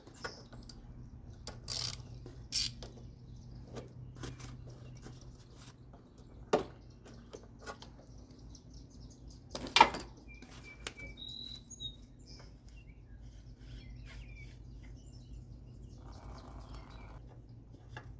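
Scattered clicks and knocks of a claw-type oil filter wrench and other hand tools working at a riding mower's oil filter, the loudest knock about ten seconds in. Birds chirp now and then in the background.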